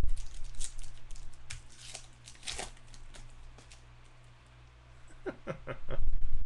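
Baseball cards and a foil pack wrapper being handled close to the microphone, giving scattered crinkles, tears and clicks. There is a low bump at the start and another near the end.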